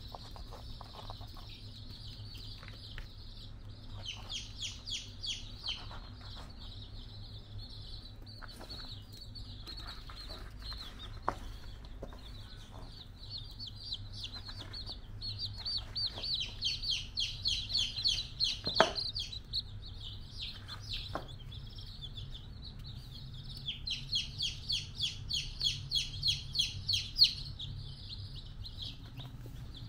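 Small birds chirping rapidly and high-pitched, about four or five chirps a second, in runs of a few seconds. The longest runs come in the middle and near the end. A few sharp knocks sound in between, over a steady low hum.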